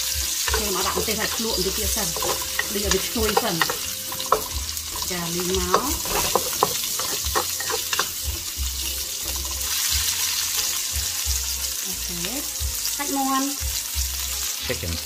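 Lemongrass and minced garlic sizzling in hot oil in a black hammered wok, stirred with a wooden spatula, with frequent short clicks and scrapes of the spatula against the wok.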